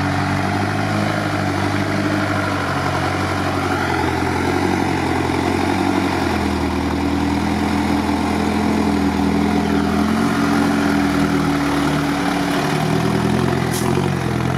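GAZ-63 truck engine running under load as the truck pulls through bog mud, its pitch dropping and rising several times as the throttle changes. A short click near the end.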